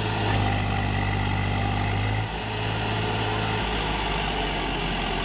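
Swaraj tractor's diesel engine running steadily under load, pulling a loaded trolley up a sandy mound; its note drops a little about three and a half seconds in.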